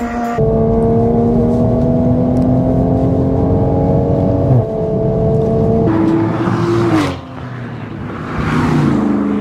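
Toyota GR Supra's turbocharged straight-six with an aftermarket exhaust, accelerating hard: the engine note climbs steadily, drops at an upshift about four and a half seconds in and climbs again, then falls away as the throttle comes off. After a brief quieter moment the engine note rises again near the end.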